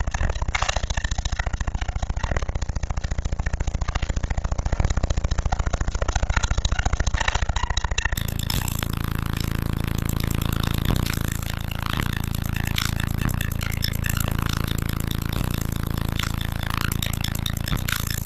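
A car audio system of sixteen Sundown NSV4 12-inch subwoofers playing loud, deep bass: a dense, buzzing low rumble. About eight seconds in it changes to a steady low drone of several even bass tones.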